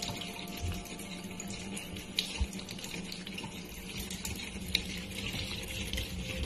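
Kitchen tap running a thin, steady stream of water into a sink.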